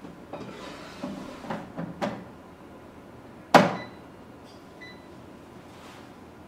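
Alpha Living KEA0201 air fryer's plastic basket drawer being handled with a few light knocks, then pushed home into the fryer with one sharp clack about three and a half seconds in. A couple of short beeps from its touch panel follow.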